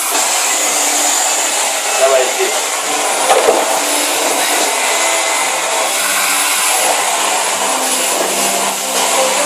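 Vacuum cleaner motor running steadily, with a high-pitched whine over a constant rushing noise.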